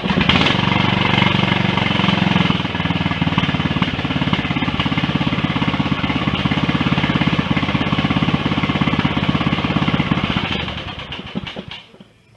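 Rebuilt Briggs & Stratton 18.5 hp lawn tractor engine, freshly filled with new oil, starting at once and running steadily, then shut off about ten seconds in and winding down to a stop.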